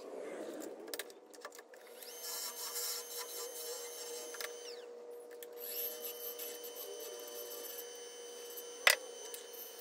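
Wood lathe running with a steady hum while a turning tool cuts a spinning maple pawn, in two scraping passes of a few seconds each. A sharp click near the end.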